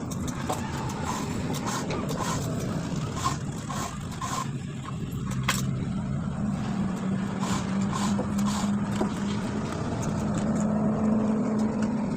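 A motor running steadily, its pitch rising slightly in the second half, with scattered scraping clicks.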